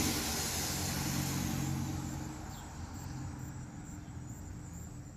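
A road vehicle passing and fading away, its engine hum and tyre noise dying down over the first few seconds, with insects trilling faintly in the background.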